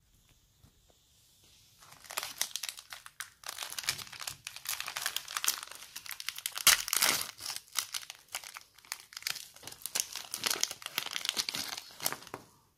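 Shiny plastic flow-wrap wrapper of a chocolate-coated biscuit bar being torn open and crinkled by hand. Dense crackling starts about two seconds in, with the loudest moment about halfway through.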